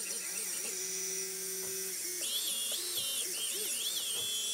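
Brushless motors of a QAV 250 race quad spinning without propellers, a high whine that rises and falls in pitch as the throttle stick is moved, holding steady for a stretch about a second in.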